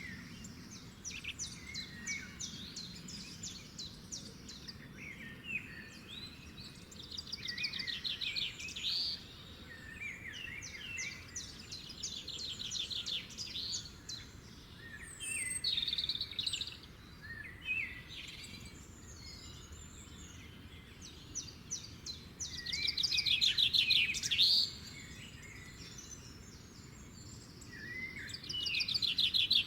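Wild songbirds singing: rapid trilled phrases and short chirps from more than one bird, a new phrase every few seconds, the loudest about three quarters of the way through and again at the end, over a faint steady low outdoor background.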